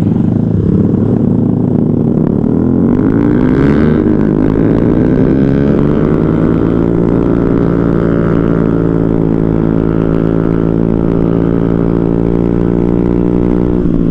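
Motorcycle engine pulling away, rising in pitch over the first several seconds as it accelerates, then running at a steady pitch at cruising speed.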